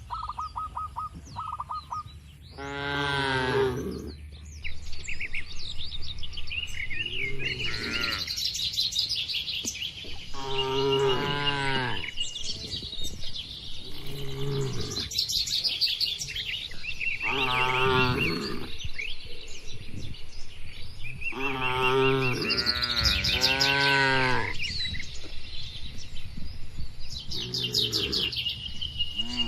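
Cattle mooing several times, calls a few seconds apart, with birds chirping between and over them.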